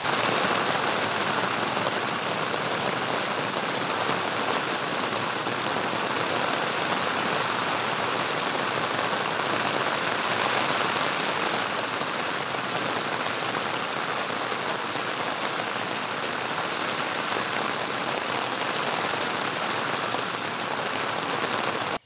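Steady rain, an even hiss of falling drops with no let-up, which starts suddenly and cuts off sharply at the end.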